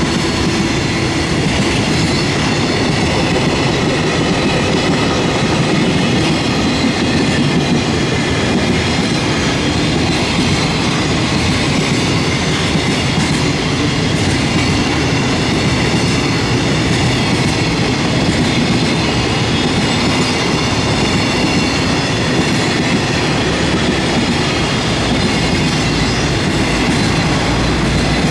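Container wagons of a JR Freight train rolling past at speed, their wheels running on the rails in a loud, steady rumble.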